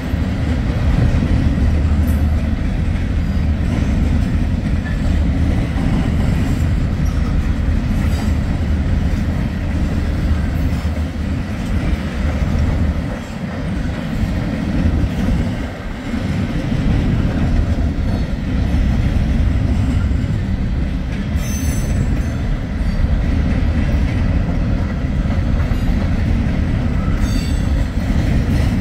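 Wheeling & Lake Erie freight train rolling past: a loud, steady rumble of wheels on rail with clickety-clack and a faint high wheel squeal, dipping briefly twice about halfway through.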